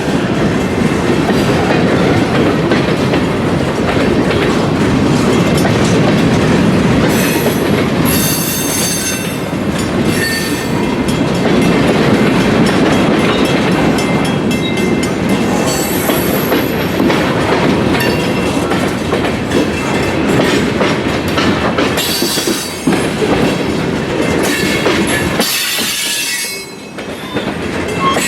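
A train rolling past at close range: a continuous rumble of railcars, with wheels clacking over rail joints and occasional high wheel squeal. The sound drops briefly near the end.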